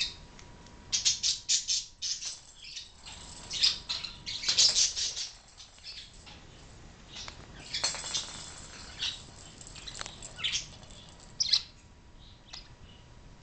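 Pet budgerigar chirping in several short, high-pitched bursts with quiet gaps between them, the loudest about a second in and again about four to five seconds in.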